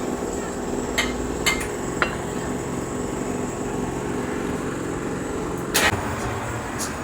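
Sharp metal-on-metal strikes over the steady drone of running workshop machinery: three quick strikes in the first two seconds, then a louder one near the end.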